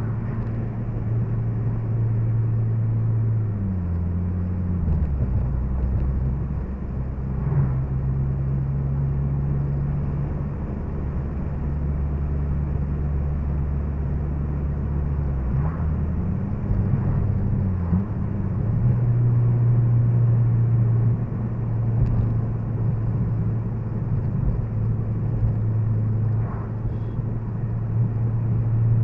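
Honda Civic Si's K20Z3 four-cylinder engine and road noise inside the cabin while cruising at about 45 mph, a steady low hum. The engine note drops a few seconds in and rises again about two-thirds of the way through, with a few faint knocks from the road.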